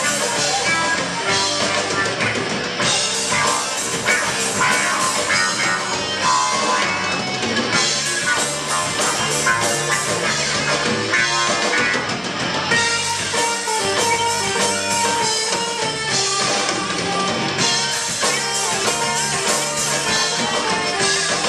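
Live rock band playing: electric guitars, keytar and drum kit at full volume.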